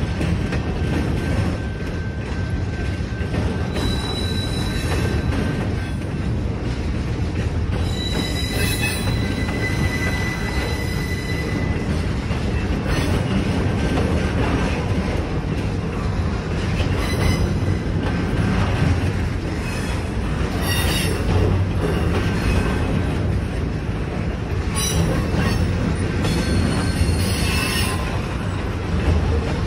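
Freight train of intermodal container cars rolling past a grade crossing: a steady rumble of wheels on rail, with thin, high wheel squeals about four seconds in and again from about eight to twelve seconds.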